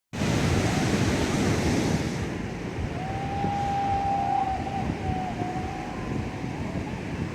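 Ocean surf washing on the beach, with wind buffeting the microphone, louder in the first two seconds. A faint, thin, high steady tone sounds for about three seconds in the middle.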